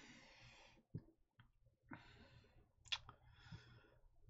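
Near silence: room tone with a few faint, short clicks.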